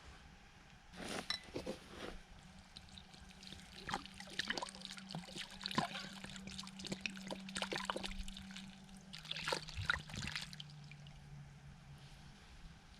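Water pouring and splashing in irregular bursts, over a low steady hum that drops slightly in pitch about nine seconds in.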